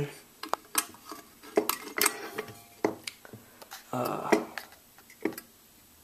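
Handling noise from an old Acme fire alarm pull station: a string of sharp, irregularly spaced clicks and light knocks as its metal back plate and red plastic housing are turned over and tapped together.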